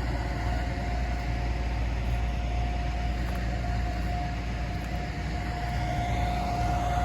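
Heavy diesel engine idling steadily: a low, even rumble with a constant whine held over it.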